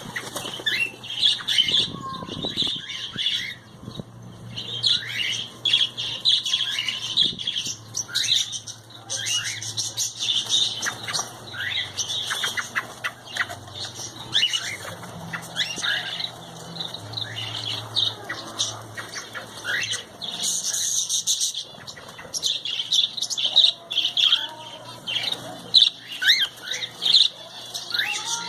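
A flock of small birds chirping and squawking together in a continuous, busy chatter of many short overlapping calls.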